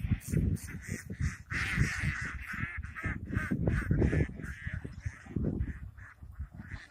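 Ducks quacking: harsh, nasal calls in a few runs, clearest about one and a half and three seconds in, over a low rumbling noise.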